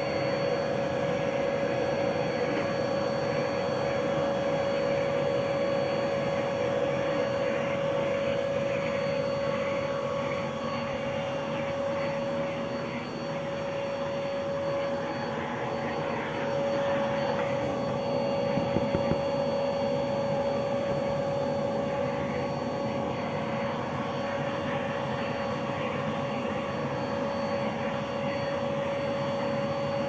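Vacuum cleaner running steadily, a constant whine with one strong steady tone over a rushing hiss, as its hose nozzle is worked over a dog's short coat. A few brief knocks come a little past the middle.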